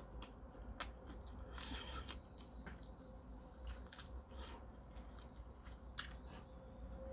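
A man chewing and biting into a king prawn, with wet squishing mouth sounds and scattered short smacks and clicks. A faint steady hum lies underneath.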